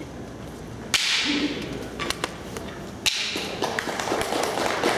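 Two sharp cracks about two seconds apart, then an audience starts applauding and the applause builds.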